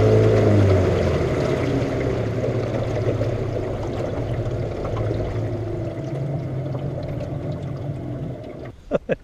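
Small boat's outboard motor running, its steady note dropping back within the first second, then running low under water rushing and slapping along the hull. The sound drops away near the end with a couple of sharp clicks.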